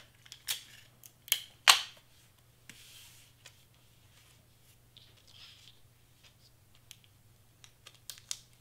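Clear Scotch tape pulled off a handheld dispenser and torn, three short sharp rips in the first two seconds, the last the loudest. Then cardstock is handled and the tape pressed down, with soft rustles and light ticks.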